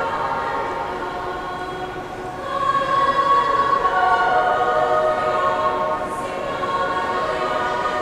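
A girls' choir singing in harmony, with long held notes; the singing swells louder about two and a half seconds in.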